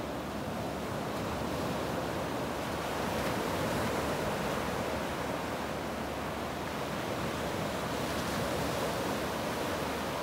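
Small sea waves breaking and washing up onto a sandy beach: a steady wash of surf.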